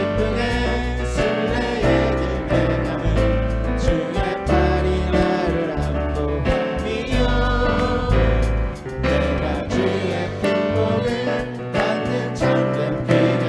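Church praise team and congregation singing a Korean hymn together, accompanied by guitar and a bass line that moves chord by chord.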